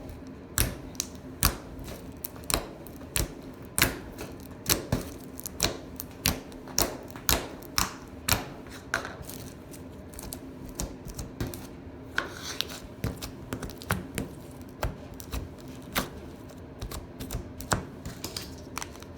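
Clear slime being squeezed and stretched by hand, giving sharp popping clicks as air bubbles in it burst, one or two a second, with a faint steady hum underneath.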